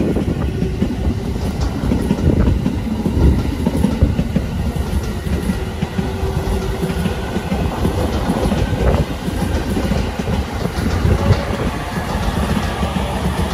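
JR East E217-series electric multiple unit running past the platform: a steady low rumble of wheels on rail, with faint clicks scattered through it.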